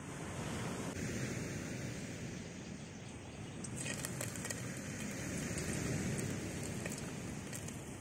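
A steady rush of surf and wind, with battered red mullet frying in a pot of hot oil: faint scattered crackles and pops start about four seconds in.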